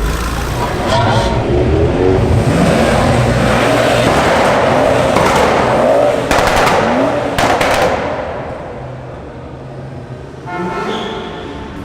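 A car engine revving and accelerating hard, its pitch climbing again and again, with a few sharp cracks past the middle, then a short horn toot near the end.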